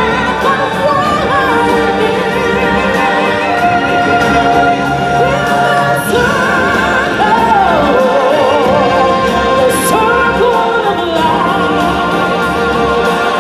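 Singing from a live stage musical over an orchestral backing track: voices hold long notes with wide vibrato.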